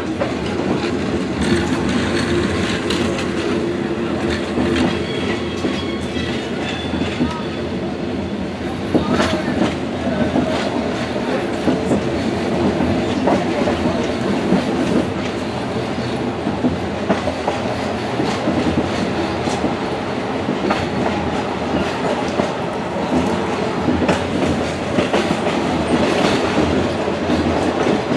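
Tanzania Railways passenger train pulling out of the station: a steady rumble with the wheels clicking and clattering over the rail joints. The clatter picks up from about nine seconds in as the train gathers speed.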